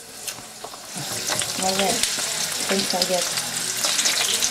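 Raw chicken pieces frying in olive oil in a paella pan: a steady sizzle that starts about a second in.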